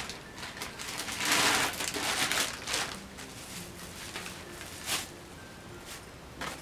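Clear plastic bag crinkling and rustling as a plastic model horse is pulled out of it, densest early on, followed by a few short, sharp rustles.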